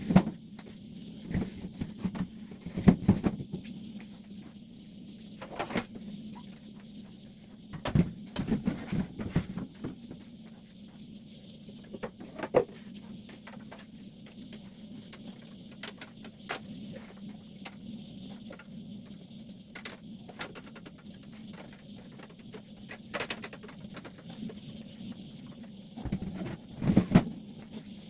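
Household cleaning sounds: irregular knocks, clicks and rubbing as things are handled and surfaces scrubbed, with a steady low hum underneath.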